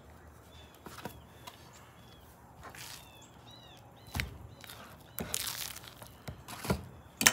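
Small birds chirping faintly in the background. A fork and a seasoned ribeye knock and scrape on a plate as the steak is lifted and turned over; the loudest knocks come near the end.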